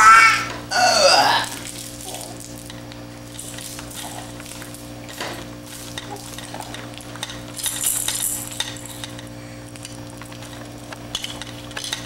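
A baby's squealing vocal sounds near the start, then light clicking and clattering of hard plastic toys on a baby bouncer's toy bar as the baby mouths and handles them, over a steady low hum.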